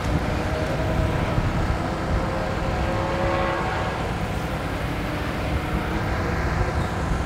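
Steady background rumble of motorcycle engines running on the racetrack, with a faint engine drone standing out in the middle.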